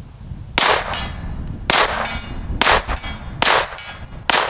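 Five shots from a Colt 1903 Pocket Hammerless pistol in .32 ACP, fired at a steady pace of about one a second. Each shot is followed by a short metallic ring, the sound of hits on a steel silhouette target.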